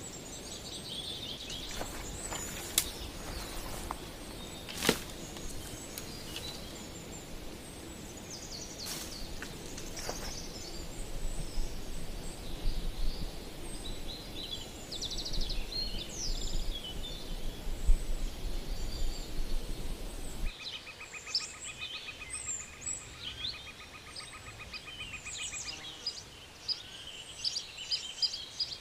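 Outdoor ambience of many small birds chirping and singing over a steady low background noise, with a few sharp clicks. About twenty seconds in the low noise drops away and a rapid, evenly pulsed trill joins the birdsong.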